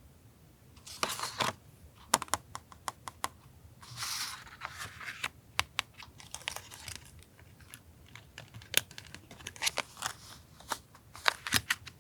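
Paper being handled for journal collage: short rustles and tearing sounds mixed with many light clicks and taps.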